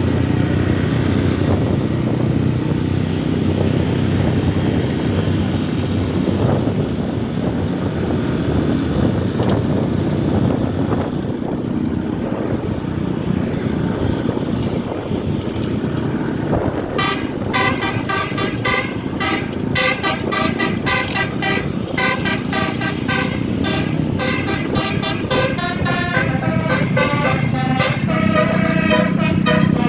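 Low rumble of a bus engine and passing traffic, then about 17 seconds in a Basuri multi-tone telolet horn starts playing a quick tune, its notes switching several times a second.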